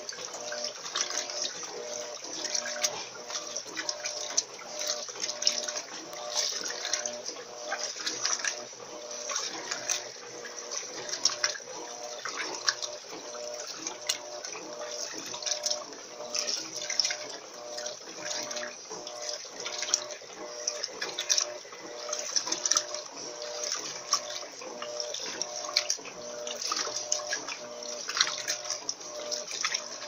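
Electrolux LT13B 13 kg top-loading washing machine agitating a load of cushion covers in soapy water: steady splashing and churning of water over a motor hum that pulses in a steady back-and-forth rhythm as the agitator reverses.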